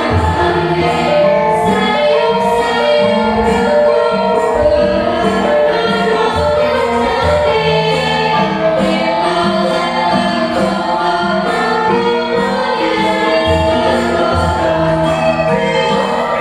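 Javanese gamelan ensemble playing a lancaran, the bronze metallophones and gongs ringing out the melody over low drum and gong strokes, while a group of women sing the melody together.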